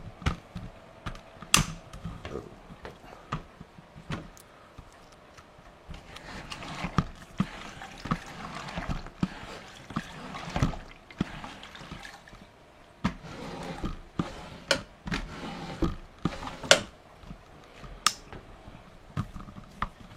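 Wet microfiber mop swishing back and forth over a hard floor, with frequent sharp irregular knocks and clicks from the mop handle.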